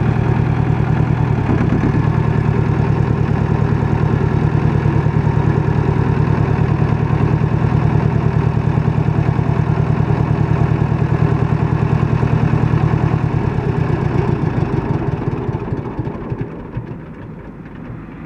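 Farm Pro 2420 compact tractor's diesel engine running steadily with an even low pulsing; about three-quarters of the way through its note changes and it grows gradually fainter.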